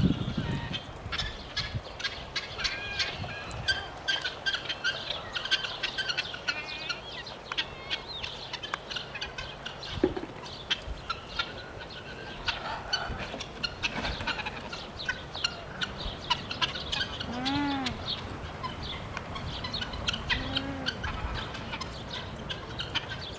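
Birds calling: many short chirps throughout, with two longer calls later on that rise and fall in pitch, over scattered sharp clicks.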